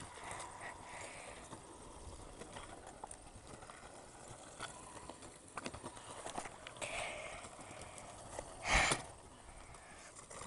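Kick scooters rolling and pushing across asphalt, with scattered clicks and knocks from wheels and decks, and one brief louder burst of noise about nine seconds in.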